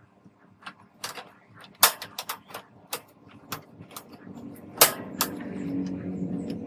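A string of irregular sharp clicks and knocks of hard objects being handled, the loudest two just before two seconds and just before five seconds in, over a faint low steady hum that grows louder in the second half.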